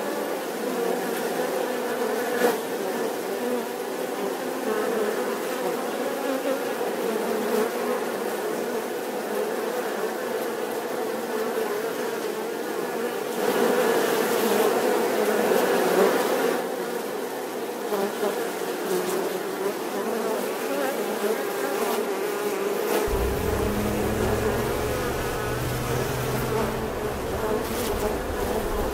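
Bees buzzing: a steady, wavering drone that swells a little midway. From about 23 seconds in, a low rumble joins under the buzz.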